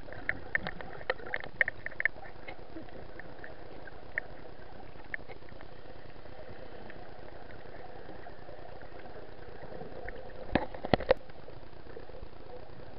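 Steady underwater noise picked up by a camera in its waterproof housing, with scattered short high pips and clicks in the first two seconds and a quick cluster of sharp clicks about ten to eleven seconds in.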